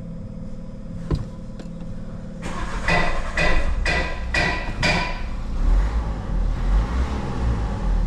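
Renault 1.5 dCi four-cylinder diesel being started: a click about a second in, then the starter cranks it over in about five even strokes for a couple of seconds. It catches and settles into a low, steady idle, its first start after a new cylinder-one injector was fitted and coded.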